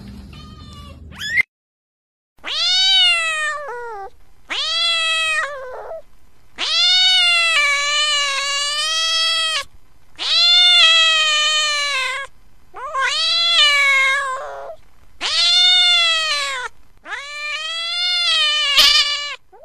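Domestic cat meowing over and over: seven long, drawn-out meows, each rising and then falling in pitch, the longest lasting about three seconds.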